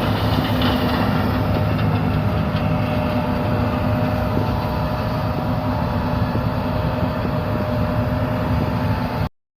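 Heavy harvest machinery running steadily under load: a deep diesel drone with a faint steady whine above it. The sound cuts off suddenly near the end.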